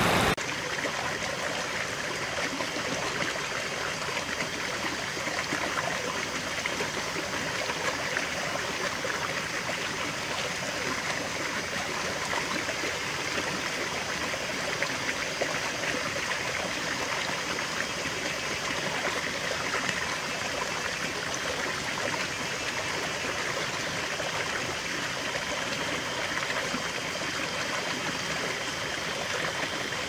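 Small rocky creek running: water flowing and trickling over stones in a steady, even rush, a little louder for the first moment.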